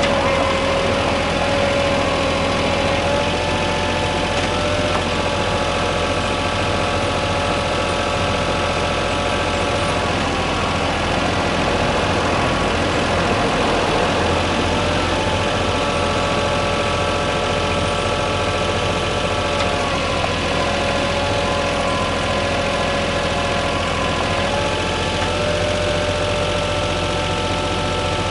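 Yanmar VIO20-1 mini excavator's diesel engine running steadily at idle, with a whining tone whose pattern shifts every few seconds.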